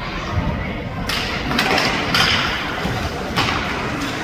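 Ice hockey play on a rink: hissing scrapes of skate blades cutting the ice, the longest running from about a second in to past the middle, with a few dull thuds of puck, sticks or boards.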